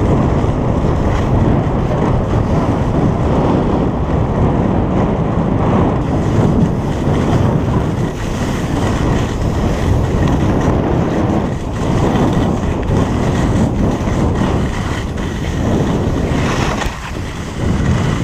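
Wind buffeting the action camera's microphone during a fast ski run downhill, a steady loud rushing mixed with the scrape of skis on packed snow.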